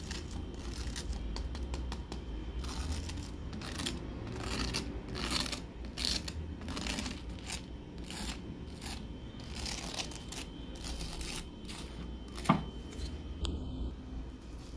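A knife cutting into the crisp, breadcrumb-coated crust of freshly fried soy-mince fritters: a run of irregular crackling and scraping strokes, with one sharp tap late on.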